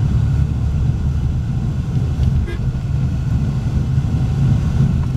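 Steady low rumble of a car's engine and road noise heard from inside the cabin while driving in traffic.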